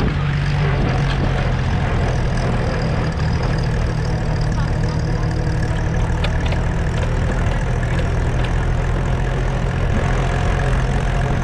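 Vintage farm tractor's engine running steadily at an even speed while driving, heard from close behind the driver's seat.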